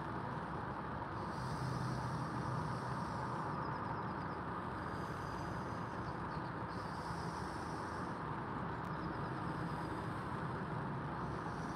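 Steady hum of distant road traffic, even and unbroken.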